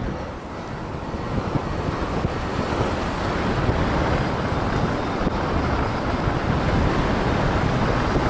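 Airflow buffeting the camera microphone of a paraglider in flight, a steady rushing noise that grows louder over the first few seconds.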